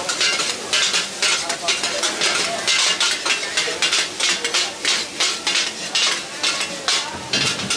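Metal spatula scraping and tossing mee goreng (fried noodles) in a sizzling wok. The strokes come about two to three a second over the frying.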